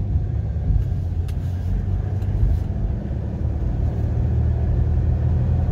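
Car engine and road rumble heard from inside the cabin as the car accelerates under throttle. The engine now pulls with strong power, which the driver puts down to the pedal having been the fault.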